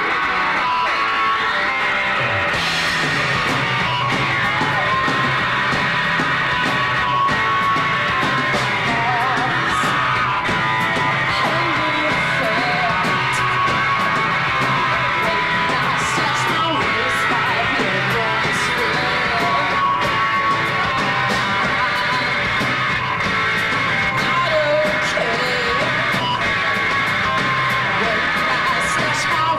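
Live rock band playing: electric guitar, bass and drums, with a woman singing into a microphone.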